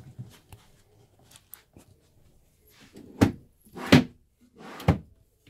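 Drawers of an IKEA ALEX drawer unit slid along their runners three times in quick succession, starting about three seconds in, each run ending in a sharp knock at its stop, after a few faint small clicks.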